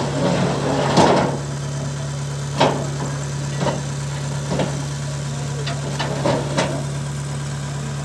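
An engine idles steadily while the steel loading ramps of the truck bed are handled. Irregular metal clanks and knocks come through it, the loudest about a second in.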